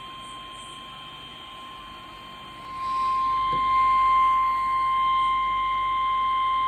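NOAA Weather Radio 1050 Hz warning alarm tone: a single steady high tone played through a weather radio receiver's speaker, jumping louder about three seconds in. The tone signals that a warning message follows.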